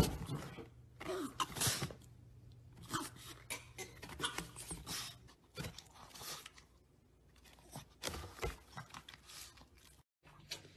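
A dog chewing and mouthing a hot dog that pokes up through a hole in a cardboard box: irregular bursts of crunchy chewing noise with short quiet gaps between them.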